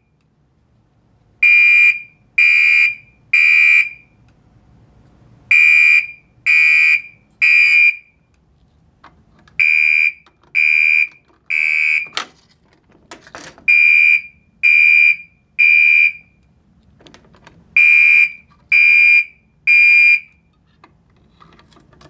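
Gentex SHG horn strobe sounding the temporal code-3 evacuation pattern: a loud, steady electronic horn beeping in groups of three, five groups in all, with short pauses between groups. A few faint sharp clicks come between the beeps around the middle.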